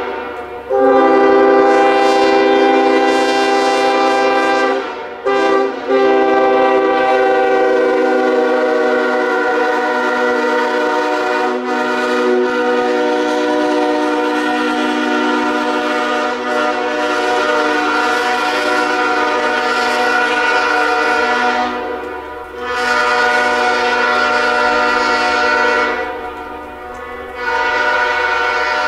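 Nathan K5HL five-chime locomotive air horn sounding a long, loud chord in several sustained blasts. There are brief breaks near the start, about five seconds in, and about 22 seconds in, and a longer dip near the end.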